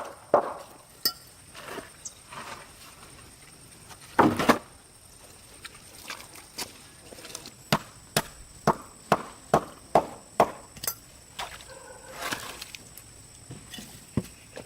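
Repeated sharp knocks of blows being struck by hand. A heavier thud comes about four seconds in, followed later by a regular run of about seven strikes at roughly two a second.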